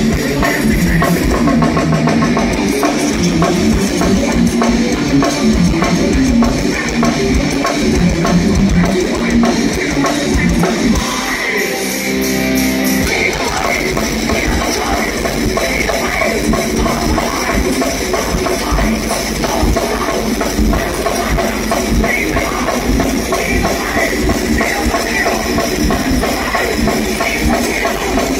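Thrash metal band playing live at full volume: distorted electric guitars, bass and a fast drum kit. About twelve seconds in, the drums and bass drop out briefly under a held guitar note before the full band comes back in.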